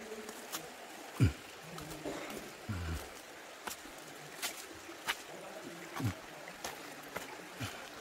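Irregular knocks and clicks of footsteps over rock and shallow water in a stream, with light water sounds. A short low sound falling in pitch about a second in is the loudest, and a few softer ones follow.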